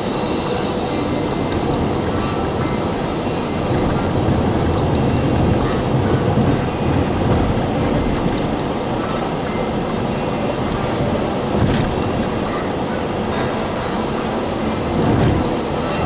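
Road noise heard from inside a moving Mercedes-Benz car: a steady rumble from the tyres on worn, patched asphalt, with the engine and wind underneath.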